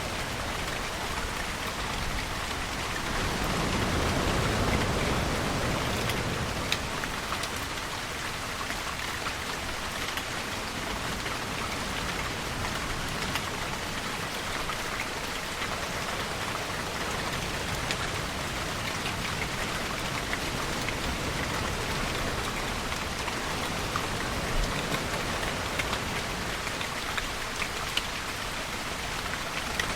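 Steady rainfall, with separate drops ticking on a surface throughout. A deeper swell rises and fades again about four seconds in.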